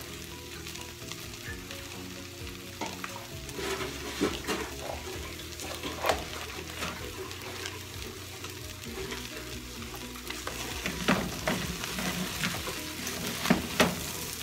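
Rice and chopped octopus sizzling as they sauté in a metal saucepan, with a spoon knocking and scraping against the pot now and then. The stirring grows busier and louder in the last few seconds.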